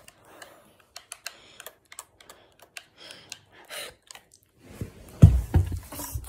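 A run of sharp, irregular clicks and taps, like keys or buttons being hit quickly, then a few heavy thumps about five seconds in.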